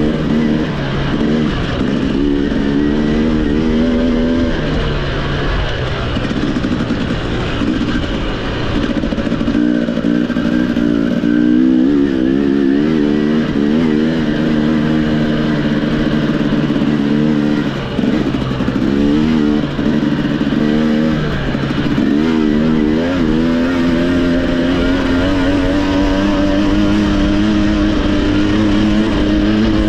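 Racing motorcycle engine running hard under a rush of wind noise. The pitch holds steady for long stretches, then swings quickly up and down with the throttle a few times. Around the middle it briefly drops off twice, as if the throttle is backed off or a gear is changed.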